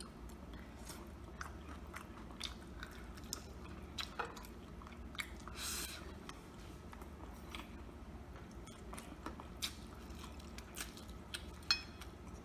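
Close-up eating sounds: a person chewing and biting crispy breaded chicken, with irregular small wet clicks from the mouth and the fingers working the meat, and one longer noisy smack about six seconds in.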